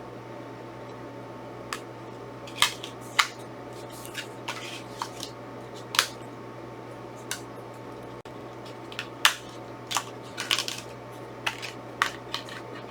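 Plastic disc cases and packaging being handled: scattered sharp clicks and taps, some in quick clusters, over a steady low hum.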